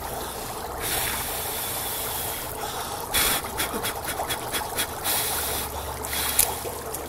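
Dry ice sitting in water in a kitchen sink, bubbling and hissing steadily, with a louder run of splashy pops about three seconds in and shorter bursts near the end.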